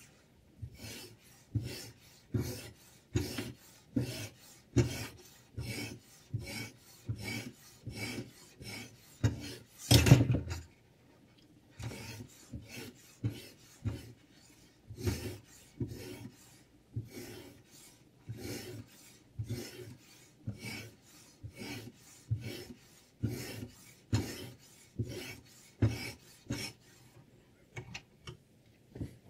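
Sharpening stone on a Sytools K09 guided knife sharpener's rod being stroked along a clamped knife blade's edge, giving a steady series of short scraping strokes, a little more than one a second. The strokes are loudest about ten seconds in, with a brief pause just after.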